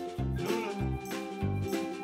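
Upbeat background music with a steady, bouncing bass beat.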